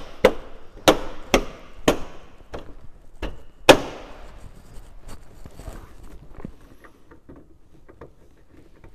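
Suzuki Jimny JB74's plastic front grille being pressed and struck home by hand, its clips knocking and snapping into place in a run of sharp knocks, the loudest about four seconds in. After that only small quiet clicks and rustling as hands work behind the grille.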